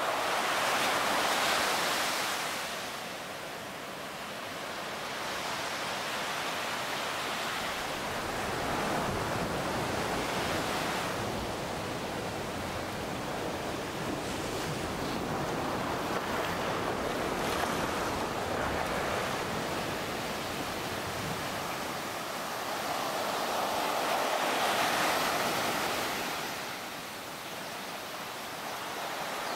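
Sea surf breaking and washing up the shore, a steady rushing wash that swells loudest near the start and again near the end.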